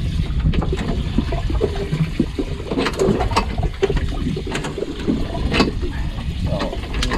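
Sea water sloshing and slapping against the hull of a small drifting boat, with a steady low rumble and irregular sharp slaps and knocks.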